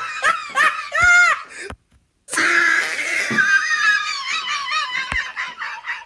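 Loud, high-pitched human laughter in quick bursts, with a brief silent break about two seconds in, then a long high laugh that breaks into short ha-ha pulses and fades near the end.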